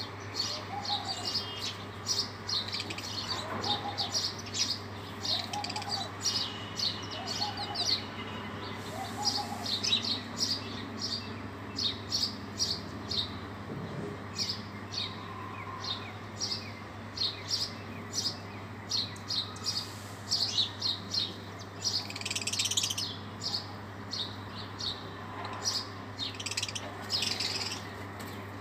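Sparrows chirping continuously, many short, high chirps following each other in quick succession and overlapping. A steady low hum runs underneath.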